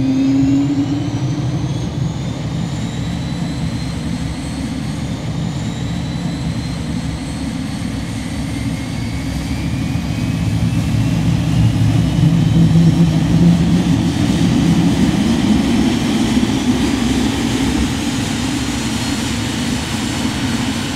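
Cirrus Vision Jet's Williams FJ33-5A turbofan spooling up during engine start: a rising whine that climbs steadily in pitch over a low rumble, growing louder about halfway through.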